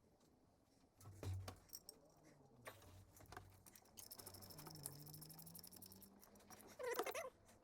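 Near silence in a workshop, with scattered faint clicks and small knocks, a soft thud about a second in, and a brief scraping rustle near the end.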